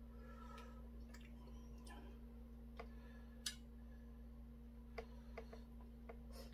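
Faint, scattered clicks of metal chopsticks against a stainless steel bowl as boiled chicken is picked up and eaten, the sharpest about three and a half seconds in, over a steady low hum.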